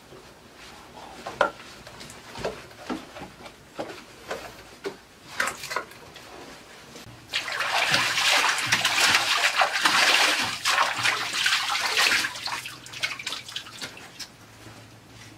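Water splashing as two men scoop pool water in their hands and throw it onto their faces. It starts suddenly about seven seconds in, runs loud and dense for about five seconds, then tapers to a few drips. Before it come a few scattered short knocks.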